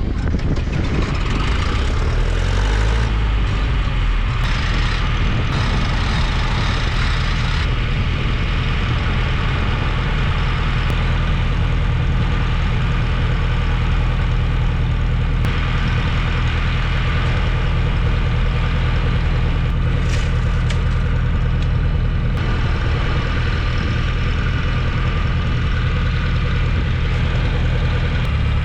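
Semi truck's diesel engine idling steadily, a low, even drone.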